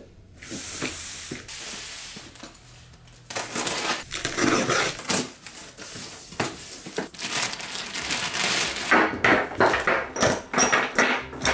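Unboxing noise: cardboard box flaps and a plastic bag rustling and crinkling, then steel chain links clinking and rattling against each other near the end as the chain tails of the tie-down straps are laid out on a wooden workbench.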